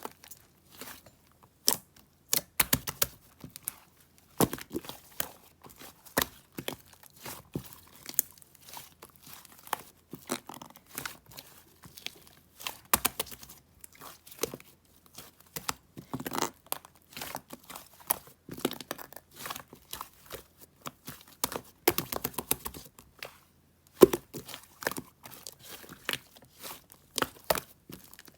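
Close-up crinkling, rustling and tearing of paper or thin plastic, in irregular short bursts with small clicks.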